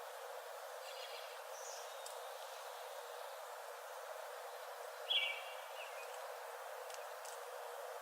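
A few short bird chirps over a steady background hiss: one about a second in, a higher note just after, and a louder chirp about five seconds in.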